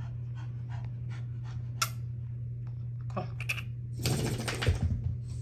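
American bully puppy panting in short quick breaths, about three a second, over a steady low hum. About four seconds in it shakes its head, a brief flapping rustle that is the loudest thing heard.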